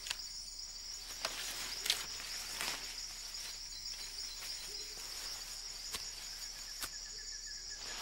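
Steady high-pitched drone of rainforest insects, with a few faint snaps and clicks scattered through it.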